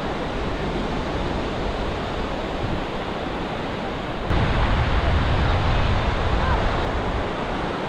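Ocean surf washing on the beach, a steady rush with wind on the microphone. It gets louder and deeper about four seconds in.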